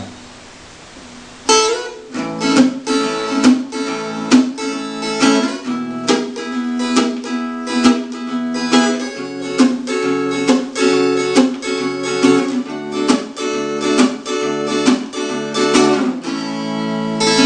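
Acoustic guitar strummed in a steady rhythm, starting about a second and a half in. The chords are cut short between strokes by left-hand muting, the fretting fingers easing off the strings, which gives a choppy beat.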